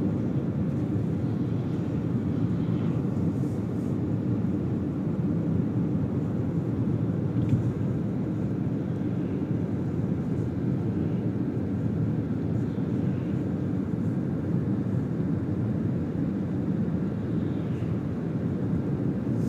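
Steady low drone of road and engine noise inside a moving car's cabin, with one small click about seven and a half seconds in.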